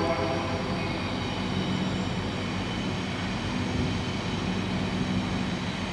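Freight train led by Union Pacific diesel locomotives running by, a steady engine rumble over rail noise. The end of a locomotive horn blast dies away in the first half second.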